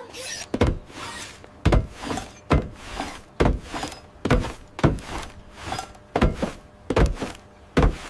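Cartoon sound effect of a robot climbing a stack of large pipes: a steady series of about ten heavy clunks, one roughly every second.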